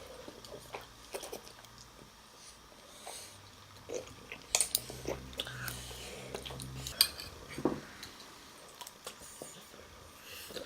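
Someone eating ramen: chewing and mouth sounds with scattered short clicks and taps of utensils.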